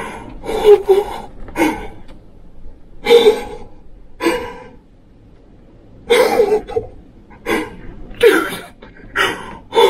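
A man's breathless, excited vocal sounds: about nine short bursts of heavy breaths, gasps and half-voiced exclamations with pauses between them.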